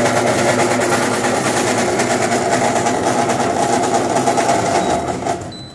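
A 151TG soft-serve ice cream machine running with a loud, steady mechanical buzz and heavy vibration, which is traced to its internal refrigeration area. The sound falls away near the end.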